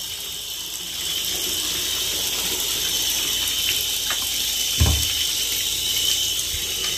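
Water running steadily into a bathtub, an even hiss, with one short dull knock about five seconds in.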